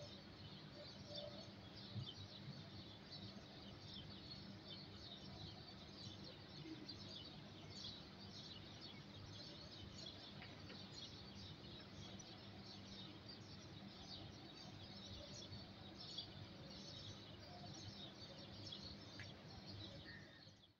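Faint chorus of small birds chirping, many short chirps overlapping, over a low steady hum.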